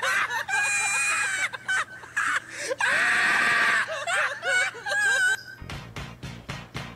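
A person screaming: two high-pitched held screams of about a second each, with bits of talk between them. Near the end the screaming gives way to a quick, even run of short knocks or beats.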